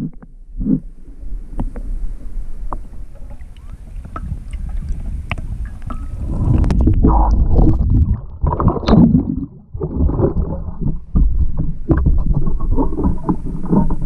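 Lake water sloshing and splashing as a person wades and works a perforated metal sand scoop, with scattered small knocks in the first half; the churning of water becomes heavier about halfway through.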